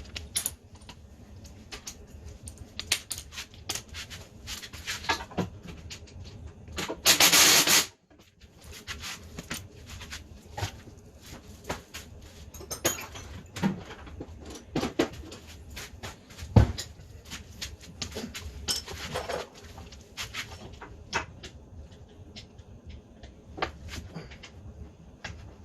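Scattered clicks, clinks and knocks of tools and metal parts being handled, with a loud rush of noise lasting about a second around seven seconds in and a single low thump a little past halfway.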